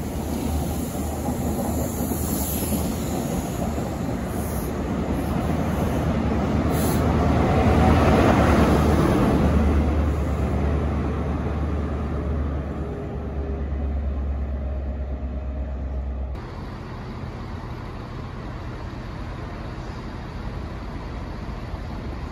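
Trains running through a station: a passenger train's rumble and rail noise swell to a peak about eight seconds in and then ease off, over a steady deep engine hum. Near sixteen seconds the sound changes abruptly to a quieter, steady rumble of a train further off.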